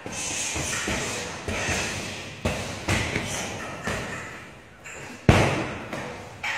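Punches and kicks landing on a hanging heavy punching bag: a string of irregular thuds, the loudest a little over five seconds in.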